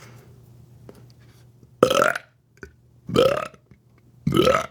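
Three short burps about a second apart, made on purpose by a woman who performs burping.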